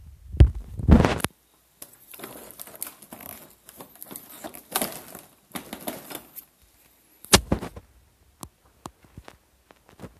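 Close handling and movement noise: two heavy thumps about half a second apart, then a few seconds of crackling rustle, like someone stirring plastic sheeting and debris, then a sharp click and a few light ticks.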